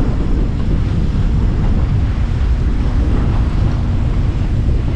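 Wind buffeting the microphone, a loud, steady low rumble, over the open water around a small boat.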